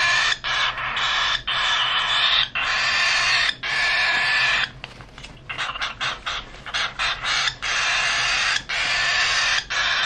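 Baby cockatiel chick giving raspy food-begging calls while being hand-fed formula: long harsh calls of about a second each with short breaks, turning shorter, choppier and quieter about halfway through.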